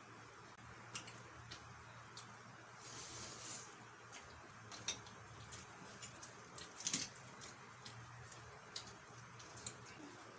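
Eating at the table: scattered wet mouth clicks and smacks of people chewing roast chicken, with a short rustle about three seconds in and a sharper click about seven seconds in.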